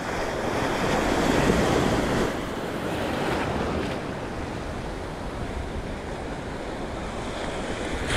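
Sea surf breaking and washing over a rocky shore, with wind buffeting the microphone. The wash swells during the first two seconds or so, drops back, and then runs on more evenly.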